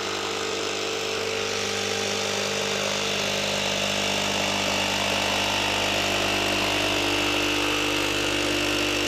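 Milwaukee M12 FUEL FJS cordless brushless jigsaw running steadily with its dust blower switched on, sawing through MDF.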